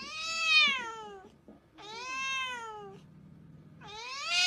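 Tabby cat meowing: three long, drawn-out meows, each rising then falling in pitch, the first the loudest.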